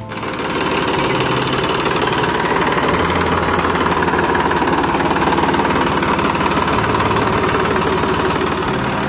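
Massey Ferguson 9500 tractor's diesel engine running steadily at low speed, test-run on its newly fitted clutch assembly.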